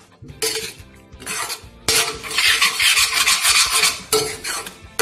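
A spoon stirring and scraping scrambling egg mixture around a metal kadai as it fries into egg bhurji, in short strokes with a loud, dense stretch of scraping and frying hiss through the middle couple of seconds.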